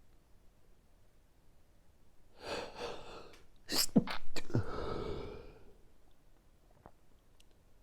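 A person sneezing during an allergy sneezing fit: a gasping in-breath, then a sudden, loud sneeze about four seconds in that trails off over the next second or so.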